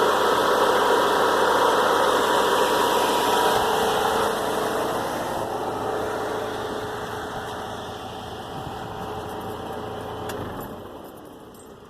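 A car's 2.5-litre engine idling warm, which the owner says gets a lifter tap once hot that he puts down to a clogged hydraulic lifter. The running sound fades gradually and drops lower near the end.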